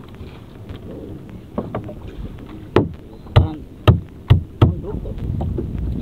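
Five sharp knocks on a small boat's hull in quick succession as a gill net is hauled in over the gunwale, over a steady low rumble of wind and sea.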